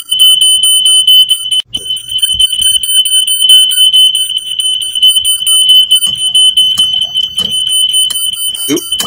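Smoke alarm sounding a loud, steady, shrill high-pitched tone, set off by smoke from paper burning in the sink. The tone breaks off briefly about two seconds in, and a few knocks and clatters come near the end.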